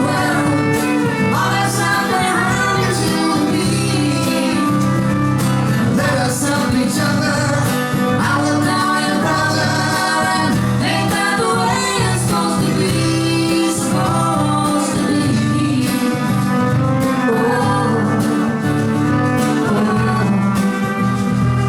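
Acoustic country band playing live, with strummed acoustic guitar under a bending fiddle melody, in what seems to be an instrumental break between sung verses.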